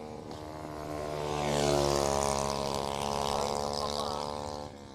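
Motorcycle engines passing at speed: a steady engine drone that swells to its loudest about two seconds in, with its pitch sinking slightly as the bikes go by, and drops away near the end.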